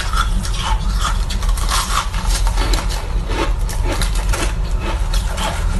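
Close-up crunching and chewing of flavoured shaved ice, many quick irregular crunches, with a steady low hum underneath.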